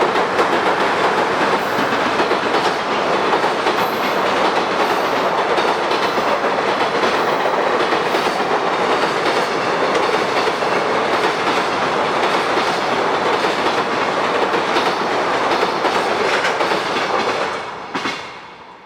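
A train passing close by: a steady loud rumble with wheels clacking over rail joints, which dies away sharply near the end.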